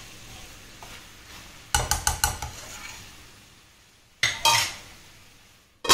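Metal cookware clattering: a few quick knocks of a spoon and lid against the pan about two seconds in, two more a little past four seconds, then a sharp metallic clank that rings briefly as the lid is set on the pan at the end.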